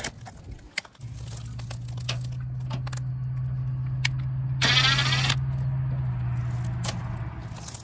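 Ryobi ONE+ brushless cordless driver backing out a 10 mm bolt, running as a steady low hum for about seven seconds. A short, louder rattling burst comes about halfway through. A few clicks come in the first second.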